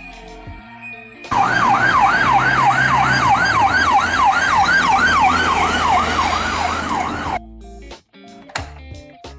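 Electronic siren in a fast yelp, rising and falling about three times a second, starting suddenly about a second in and cutting off abruptly near the end, with background music before and after it.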